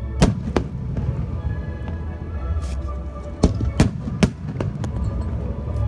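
Aerial firework shells bursting in sharp bangs over music with a steady low bass: two bangs near the start and three more between about three and a half and four and a half seconds in.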